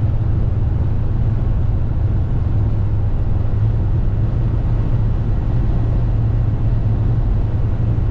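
Steady low road rumble inside a moving car's cabin: engine and tyre noise at cruising speed, even throughout.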